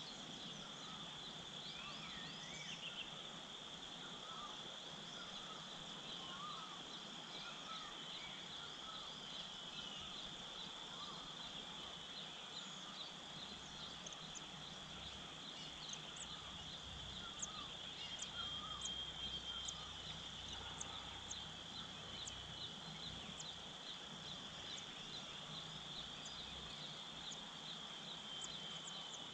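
Steady, high insect drone, with many short bird chirps and calls scattered over it.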